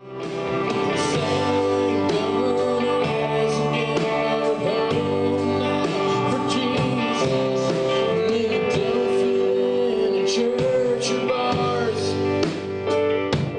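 Americana rock band playing live: a man singing over electric guitars and keyboard, with cymbal hits.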